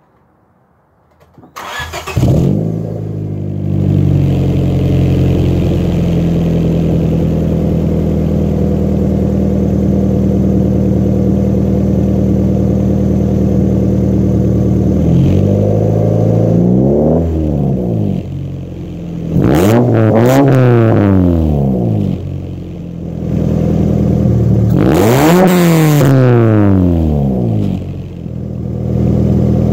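A 1997 Honda Civic EX coupe's four-cylinder engine starts about two seconds in and idles through an aftermarket catback exhaust with a low rumble. It is then revved three times, each rev rising and falling over two to three seconds.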